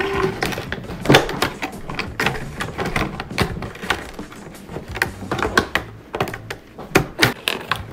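Scissors snipping at a cardboard doll box's packaging: a quick, irregular run of sharp clicks and snips.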